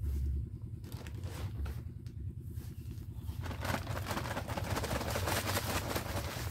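Paper cement sack crinkling and rustling as it is lifted and tipped, with cement powder pouring out onto sand in a wheelbarrow: a dense crackly noise starting about halfway in. A low steady hum runs underneath.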